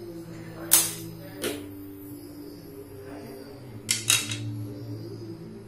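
Metal spoon clinking against kitchenware: one sharp clink about a second in and a softer one soon after, then two quick clinks close together as the spoon is laid on a plate.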